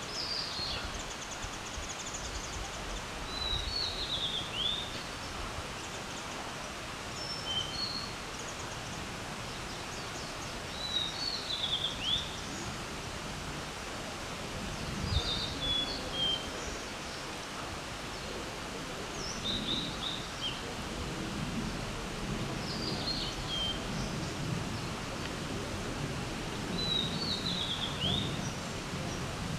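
A songbird singing short, clear whistled phrases with downward slurs, one every three to four seconds, over a steady background hiss. The uploader takes it for a female blue-and-white flycatcher.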